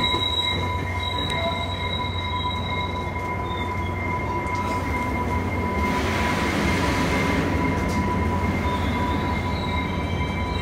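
New Mexico Rail Runner Express bi-level commuter train standing at the platform: a steady low rumble with a steady high-pitched whine over it, and a hiss of air about six seconds in that lasts a second or two.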